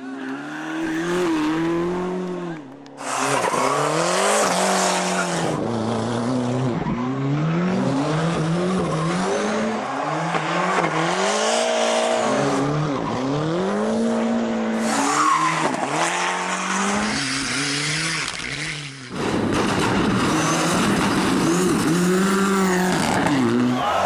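Ford Sierra RS Cosworth rally car's turbocharged four-cylinder engine revving hard through the gears, its pitch climbing and dropping again and again at each gear change and lift for the corners, heard over several separate passes.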